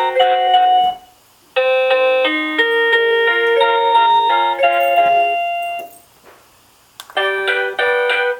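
1byone wireless doorbell chime playing electronic keyboard-like melodies: one tune ends about a second in, a second plays for about four seconds, and after a short silence and a click a third tune starts near the end.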